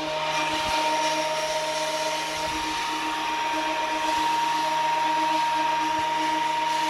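Ryobi 10-inch benchtop planer running with a steady whine, on a test run after its blades have been changed.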